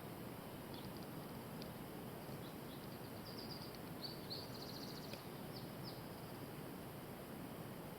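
Small songbirds calling faintly over a steady outdoor hiss: scattered short high chirps, with a rapid trill a little past three seconds and another just after four seconds.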